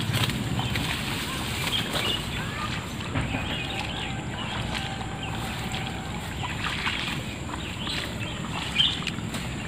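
Water sloshing and splashing as someone wades knee-deep through a rain-flooded rice paddy, with birds chirping now and then. A brief louder sound comes near the end.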